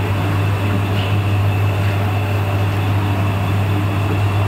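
Puffed-rice roasting machine running in production: a loud, steady mechanical hum with a constant noisy wash over it.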